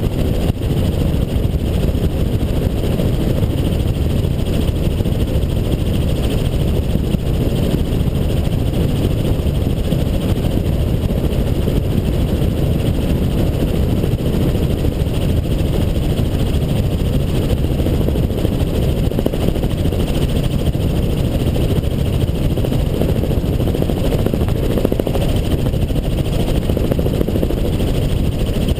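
Helicopter in flight, a steady, unbroken noise, mostly low-pitched.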